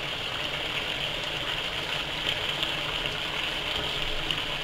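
Tomato sauce simmering in a frying pan on the hob, a steady hiss.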